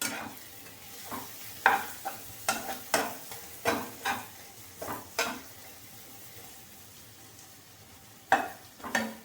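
Spices frying with browned onions in a pan, sizzling, while a spoon stirs them with a run of scrapes and knocks against the pan. The stirring pauses for a few seconds, leaving only the sizzle, then resumes near the end.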